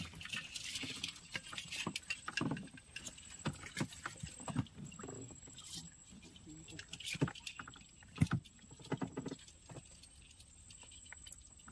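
Water dripping and splashing with scattered irregular clicks and knocks from a small boat as a baited crab line is hauled in by hand.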